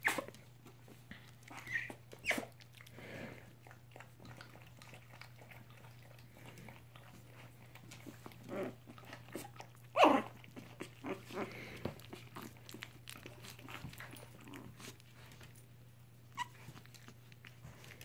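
Three-week-old Chihuahua-mix puppies making small squeaks and yips, with one louder cry about ten seconds in that drops sharply in pitch. Scattered light clicks and taps run through it, over a steady low hum.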